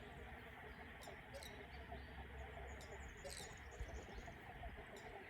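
Faint outdoor birdsong: a busy background of distant bird calls, with several short, high chirps about a second in and again around three seconds in.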